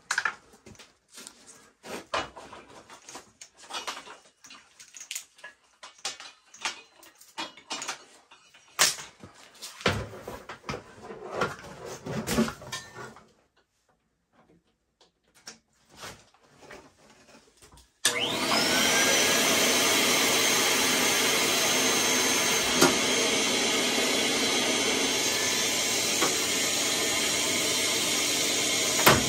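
Scattered knocks and clicks of metal parts being handled, then a short stretch of near quiet. About two-thirds of the way through, a vacuum cleaner is switched on: its motor whine rises as it spins up, then it runs steadily, cleaning out the furnace.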